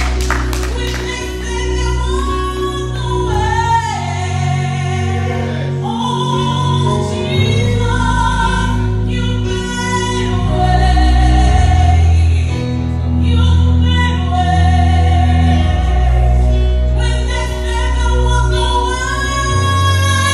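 Gospel worship team singing, several voices together, over instrumental accompaniment with long held bass notes.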